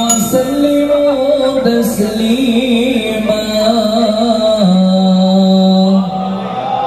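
A man singing sholawat, an Islamic devotional chant, in an ornamented, wavering melody with long held notes, amplified through a line-array PA system.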